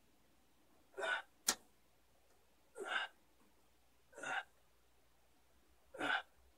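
Short, sharp breaths from a person doing pull-ups, one with each rep, four in a row about one and a half to two seconds apart. A single sharp click comes just after the first breath.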